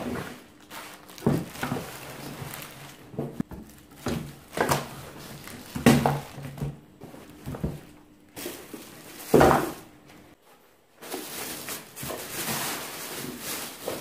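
Plastic-wrapped vacuum cleaner parts being taken out of their box and put down on a table: plastic bags rustling and crinkling, with several dull thuds as pieces are set down.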